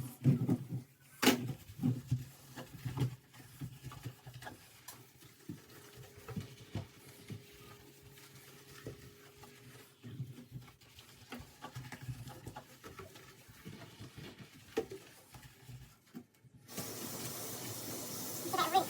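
Sponge scrubbing a kitchen sink: irregular rubbing with scattered knocks and clicks. Near the end a steady hiss starts suddenly.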